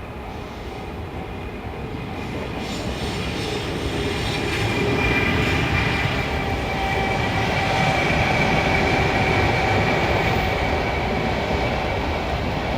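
Sleeper express train, an EF510 electric locomotive hauling 24-series coaches, approaching and passing. The rumble of the train and its wheels on the rails builds over the first five seconds, then holds steady and loud.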